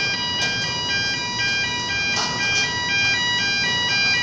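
Shipyard gantry crane's electronic warning chime playing a looping beeping tune, its clean notes switching a few times a second over a steady background rumble, with a few sharp clicks.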